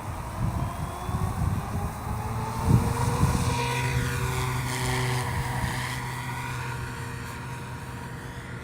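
SAB Goblin Fireball radio-controlled helicopter flying: a steady rotor hum with a high motor whine that sweeps in pitch as it passes, then slowly fades. Wind gusts buffet the microphone in the first couple of seconds.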